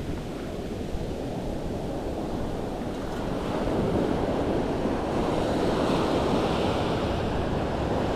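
Ocean surf breaking and washing up a sandy beach, swelling louder about three to four seconds in as a wave breaks close in.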